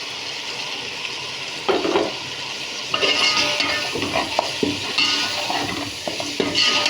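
Chicken, tomato and green chillies sizzling in hot oil in a pot, with a spoon stirring and scraping against the pot in several strokes, after the spices are added.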